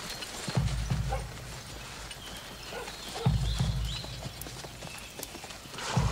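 Horses' hooves clip-clopping, with a deep double thud about every two and a half seconds.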